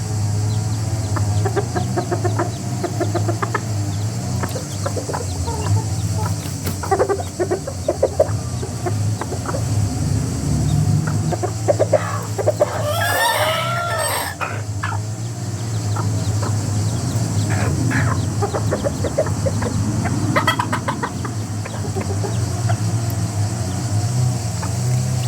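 Chickens clucking, with one rooster crow about halfway through, over a steady low hum.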